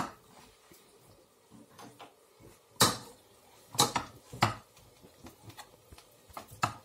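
Metal potato masher knocking against a metal saucepan while mashing boiled potatoes: a handful of sharp knocks at irregular intervals, the loudest about three seconds in.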